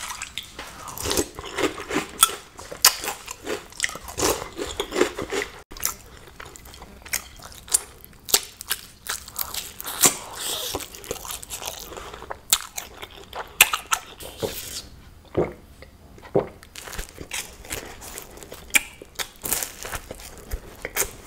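Close-up eating sounds: a spoon on a bowl and crunchy cereal being chewed, then bites of a fried egg on bread and of a croissant. Irregular sharp crunches and chewing keep up throughout.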